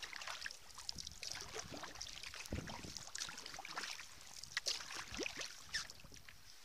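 Sea kayak being paddled on calm water: the paddle blades dipping on alternate sides, with many small splashes and water dripping and trickling off the blades.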